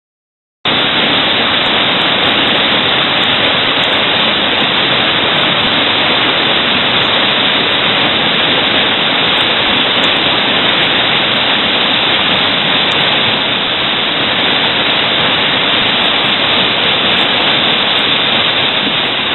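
Loud, steady rush of a large whitewater river rapid, cutting in suddenly just under a second in.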